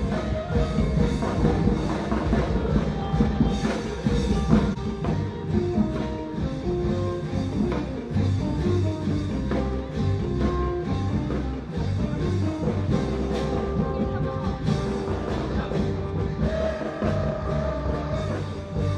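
Instrumental music with drums and a steady beat.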